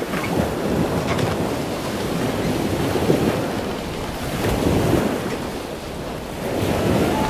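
Wind buffeting the microphone: a rushing noise that swells and eases every couple of seconds.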